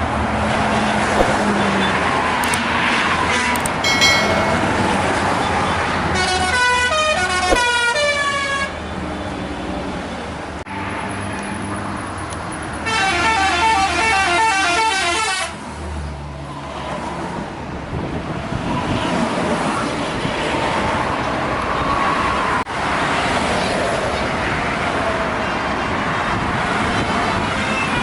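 Bus telolet musical horns over passing traffic and bus engines. A quick run of changing horn notes sounds about six seconds in, and a fast, repeating horn tune about thirteen seconds in lasts two or three seconds.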